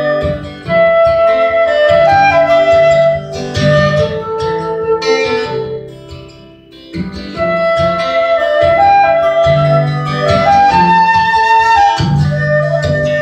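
Flute playing a melody of held notes over a strummed acoustic guitar. The playing thins out for about a second just past the middle, then picks up again.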